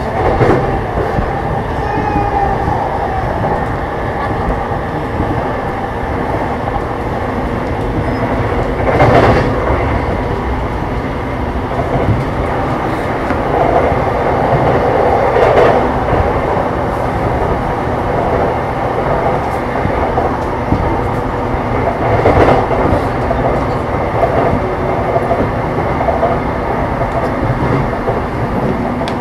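JR East E233-7000 series electric train (motor car MoHa E233-7207) running along the line, heard from inside the car: a steady rumble of wheels on rail with loud air-conditioning noise. There are three louder clatters over rail joints or points, about nine, fifteen and twenty-two seconds in.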